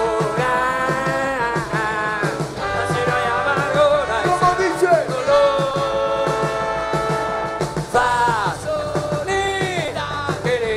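Rock band playing live: long held, sliding lead notes over a steady beat from the drums and bass.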